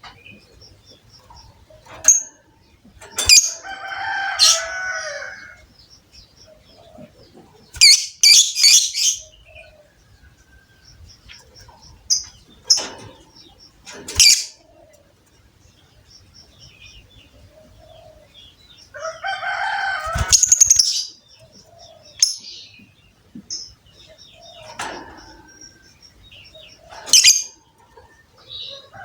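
Lovebirds calling in loud, harsh chattering bursts a few seconds apart. A faint, fast, high-pitched ticking trill runs between the bursts.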